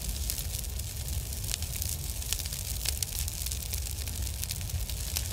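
Wind rumbling on the microphone outdoors on the ice, with dense irregular crackling clicks over it.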